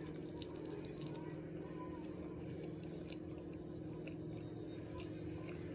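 A person chewing and biting food, with small wet clicks and smacks over a steady low hum.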